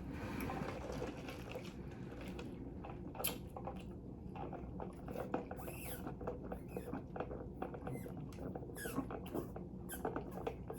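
Quiet close-up eating sounds: chewing with many small wet mouth clicks and light taps, scattered irregularly.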